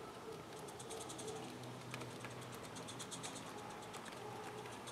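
A 16 mm scale live-steam locomotive running with a short train of wagons: a rapid series of light clicks and chuffs from its exhaust and wheels on the track, getting louder towards the end as it comes closer.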